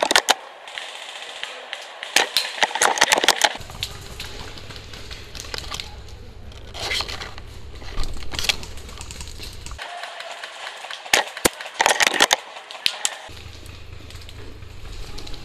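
Footsteps crunching and snapping twigs and dry brush on a forest floor, in several short bursts of crackling, with a low rumble underneath in parts.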